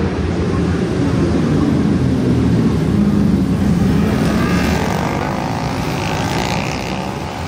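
A pack of racing motorcycles passing at speed, many engines running hard at once as a loud, dense rumble. Over the second half, higher engine whines rise and fall as the bikes rev through the corner.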